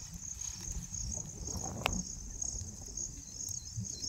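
Insects chirping steadily in a high, pulsing trill over a low rumble, with one sharp click a little under two seconds in.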